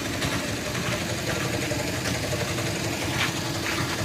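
Tuk-tuk (auto-rickshaw) engine idling steadily with a low rumble.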